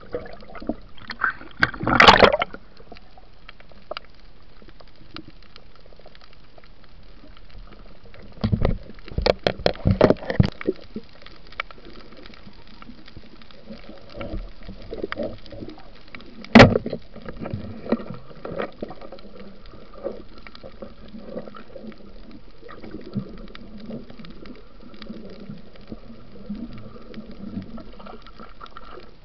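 Underwater water noise: a steady gurgling, bubbling wash. Sharp knocks cut through it, one a couple of seconds in, a quick cluster about a third of the way through, and a single loud crack a little past halfway.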